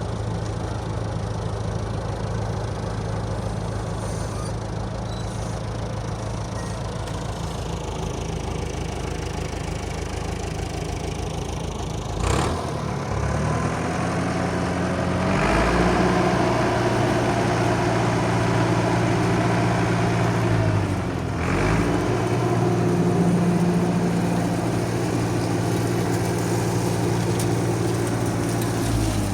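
Truck engine idling steadily, then a click about midway, after which the revs climb and hold at a higher steady speed, dropping back briefly once before rising again.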